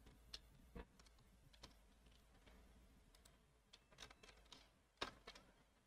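Near silence with a handful of faint, scattered clicks from a computer being worked, the loudest about five seconds in.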